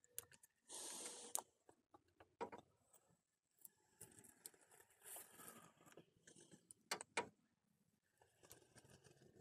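Near silence: a few brief, faint scratchy rustles and scattered small clicks from the hot tip of a plastic-welding iron being pressed and worked along a plastic radiator tank as the melted plastic is built up.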